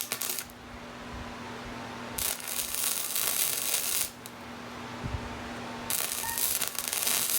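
Electric welder's arc crackling and hissing as a bead is run onto a broken paddle drill bit: a short burst at the start, then two runs of about two seconds each with pauses between.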